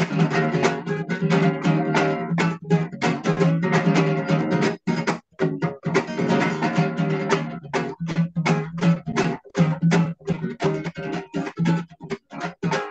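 Acoustic guitar strummed rapidly in a steady rhythm of chords, with a short break about five seconds in and another shortly after nine seconds, heard through a video call's audio.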